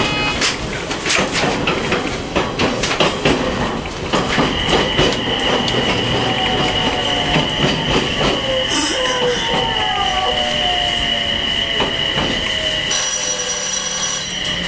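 Onboard running sound of a JR East E721-500 electric multiple unit with Mitsubishi IGBT-VVVF control, slowing on the approach to its terminus. The wheels click over rail joints, a steady high wheel squeal comes in about four seconds in, and several tones fall slowly in pitch as the train loses speed. Near the end an ATS warning alarm starts to sound.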